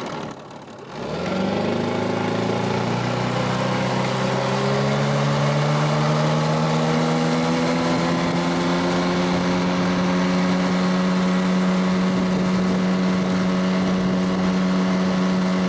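Warmed-up small outboard motor on an inflatable boat throttled up about a second in, its pitch rising over the next few seconds as the boat gets under way, then running steadily at cruising speed.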